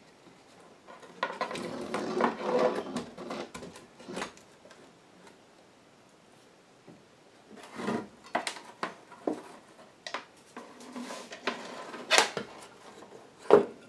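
Handling noise of a small metal amplifier chassis being pulled out of a wooden record-player cabinet: scraping and rustling at first, then, after a quiet pause, a run of sharp clicks and knocks as it is lifted out and set down.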